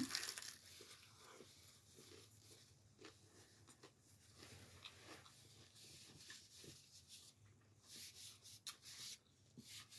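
Near silence with faint eating and handling noises: scattered soft clicks and rustles, and a few louder brief crunchy rustles between about seven and nine seconds in.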